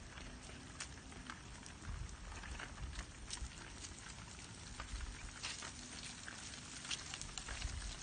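Children's bicycle rolling slowly over rough concrete while being pushed: faint, irregular ticks and light rattling from its small wheels and fittings over a low rumble.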